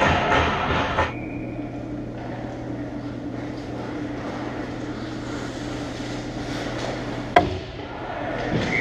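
Indoor ice-hockey rink sound heard from behind the goal: a steady low hum with faint play noise, broken by one sharp crack a little past seven seconds in, a puck or stick striking. In the first second a louder rush of noise cuts off abruptly.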